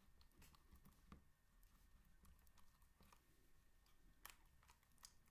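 Faint, irregular sticky clicks and pops from a silicone spatula stirring clear-glue slime in a plastic tub as the activator is worked in.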